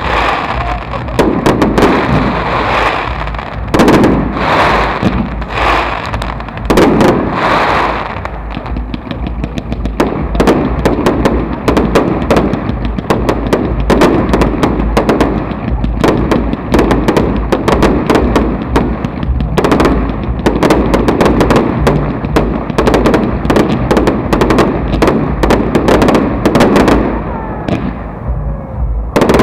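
Aerial firework shells bursting one after another in a professional display: a dense, continuous run of sharp bangs and pops, thinning slightly near the end.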